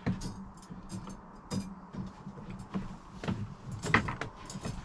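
Clicks, rattles and knocks of a folding dog gate being released with its lever and folded back out of the way, with the sharpest knock about four seconds in.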